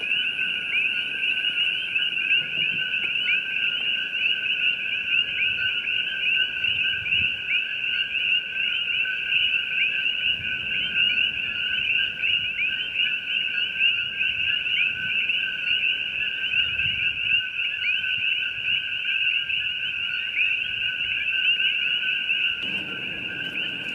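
Dense chorus of coqui frogs: many overlapping two-note "ko-kee" calls merge into a steady, high, continuous chirring.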